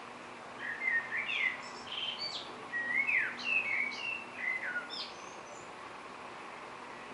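A songbird singing one quick, varied phrase of whistled notes, several sliding up or down in pitch, lasting about four seconds over a steady faint hiss.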